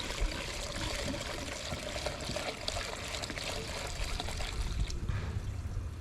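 Gasoline being poured by hand from a one-gallon container into the car's fuel tank: a steady trickle of liquid that thins out about five seconds in.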